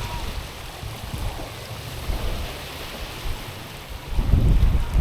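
Small waves washing over a stony shore, with a hissing wash in the middle. Wind buffets the microphone as a low rumble, swelling sharply near the end.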